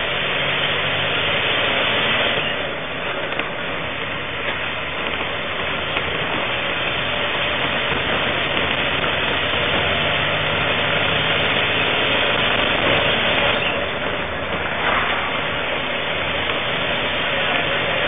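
Bus engine running with steady cabin rumble, heard from inside the passenger cabin as a continuous noisy drone with a low hum.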